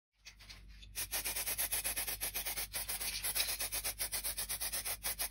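Fast, even back-and-forth rubbing on the walnut clock body, a scratchy hiss in quick strokes; faint at first, then louder from about a second in.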